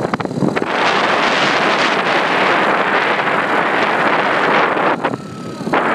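Wind buffeting a phone microphone on a moving moped: a loud rushing noise that drops away briefly about five seconds in.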